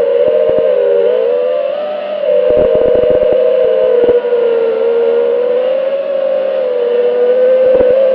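FPV quadcopter motors and propellers whining steadily, the pitch wavering up and down with throttle, several motors' tones running close together. A cluster of brief low crackles comes through about two and a half to four seconds in.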